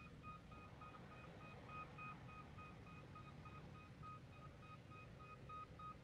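Faint backup alarm on heavy construction equipment: rapid, evenly spaced beeps at one steady pitch, over a low distant rumble.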